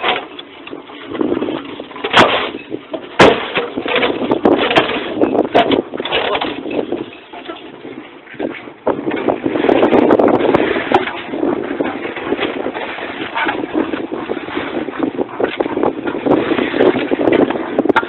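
Concrete block making machine running, with a rough, clattering noise from the machine and the concrete mix being fed into its mould. There are sharp clanks about two and three seconds in, and the noise grows denser and steadier from about halfway.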